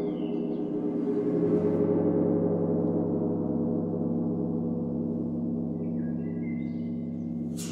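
Large gong ringing in a long sustained drone, a dense wash of low overtones, with a deeper tone swelling in about a second and a half in. Near the end a brief bright metallic strike with high ringing tones sits on top.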